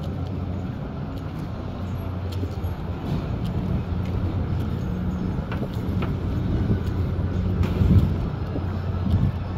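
Outdoor background with a steady low motor hum and light wind on the microphone, with a few faint clicks.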